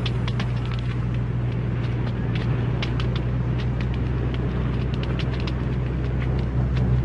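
Steady low engine drone with a constant hum and scattered light clicks.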